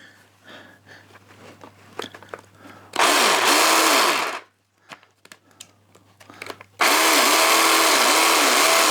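Parkside PSTDA 20-Li B3 cordless jigsaw run unloaded twice with the trigger, its motor and blade drive whirring for about a second and a half, then again for about two seconds. Its pitch rises and falls as the trigger is squeezed and eased. Light handling clicks come before the first run.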